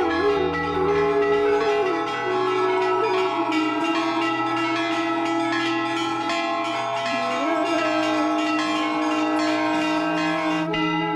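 Hanging brass temple bells rung over and over, the strikes overlapping into continuous ringing that gets busier towards the end, over a lower held tone that wavers up and down in pitch.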